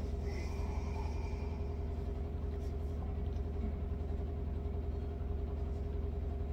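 A steady low hum, with a fainter steady tone above it and no distinct sounds standing out.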